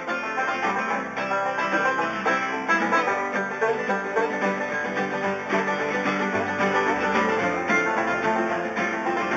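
A string band playing a tune on plucked strings, with many quick picked notes over separate low bass notes.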